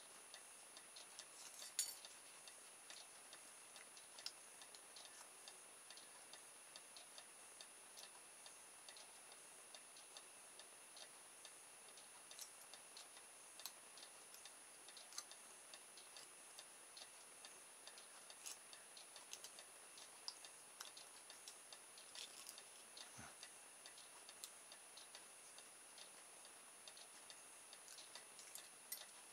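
Faint, irregular snips and clicks of small scissors cutting thin aluminium drinks-can sheet, over near silence, with one louder click about two seconds in.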